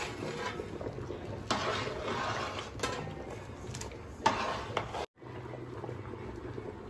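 Rice boiling hard in a large aluminium pot of water for biryani, bubbling steadily, with a metal slotted spoon stirring and clinking against the pot a few times, the loudest knock about four seconds in.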